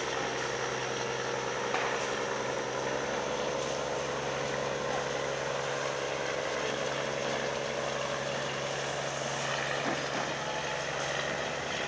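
Steady mechanical hum over a constant rushing noise, without a break or change.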